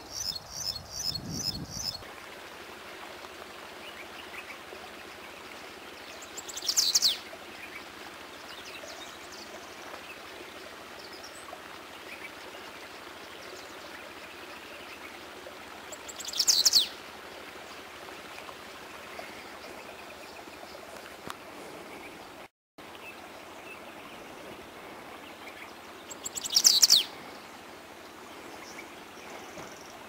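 A bunting singing one short, quick phrase of high falling notes three times, about ten seconds apart. Before that, a fast repeating high trill from another small songbird ends about two seconds in.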